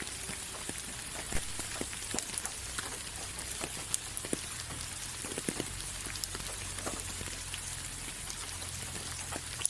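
Steady rain, a constant hiss with many separate drops tapping nearby, now and then a louder one.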